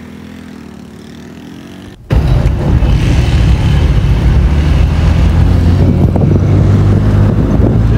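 A small engine idles quietly, then about two seconds in the sound abruptly gives way to loud, steady engine and road drone heard from inside a moving car.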